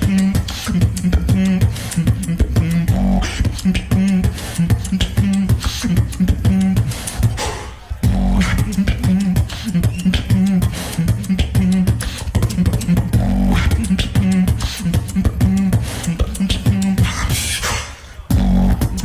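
Live beatboxing: a fast rhythm of vocal kick, snare and hi-hat clicks over a pulsing lip bass. There are short breaks about eight seconds in and just before the end.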